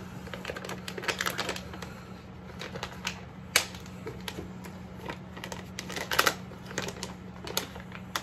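Plastic dog-treat bag crinkling and crackling in irregular bursts as it is handled, opened and a treat is pulled out.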